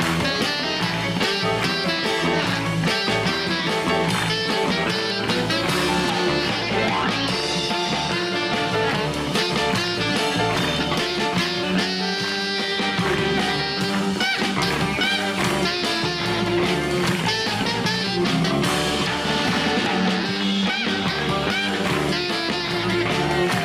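Live band playing an instrumental break with no singing: guitar, saxophone, drum kit and keyboard together at a steady beat.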